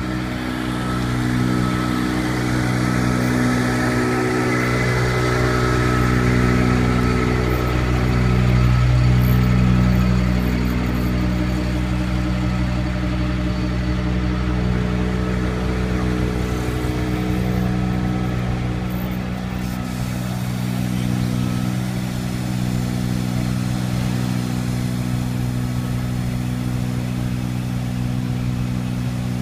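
An engine running steadily at idle, a constant low hum that swells a little about eight to ten seconds in.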